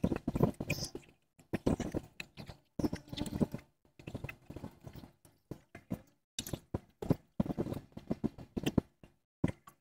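Hand work on a pit bike seat pan with foam padding: bursts of quick taps, clicks and scrapes, stopping and starting every second or so.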